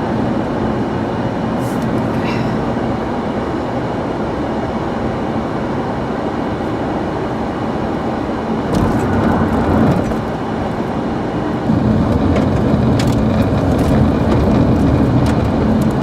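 Steady road and engine rumble heard from inside a moving vehicle. It drops briefly about ten seconds in and then comes back, with a few light clicks along the way.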